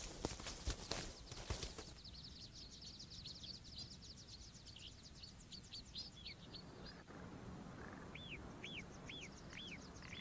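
Quiet mountain ambience with small birds calling: a fast run of short, high chirps, then a slower series of arched whistled notes, about two a second, near the end. In the first two seconds there is a crackling rustle.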